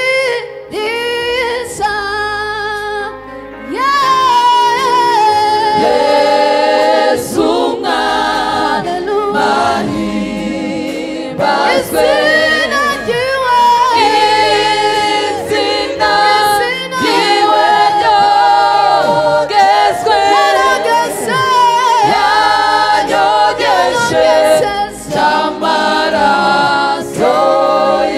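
A Rwandan gospel choir singing a worship song in harmony over a steady low bass line.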